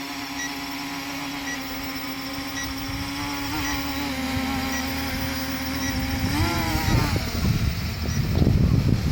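GPS camera quadcopter drone's electric motors and propellers whining at a steady pitch, rising briefly about three and a half and again about six and a half seconds in as the throttle goes up. From about seven seconds, gusty rumbling air on the microphone joins in and the sound grows louder.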